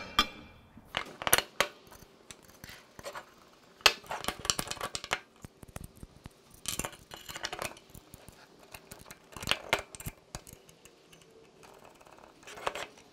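Metal suspension hardware being handled and fitted together on a wooden workbench: irregular clinks and knocks of bolts, nuts and a tubular control arm, in several short clusters.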